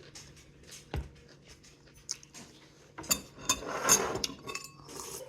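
Eating sounds: scattered clicks of a utensil against a soup container, a sharp knock about a second in, and a louder burst of clatter about three seconds in.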